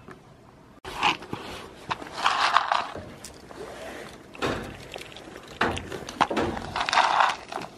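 A goat nosing and nibbling at the camera right against the microphone: close, irregular rustling and rubbing with scattered knocks, loudest around two to three seconds in and again near the end.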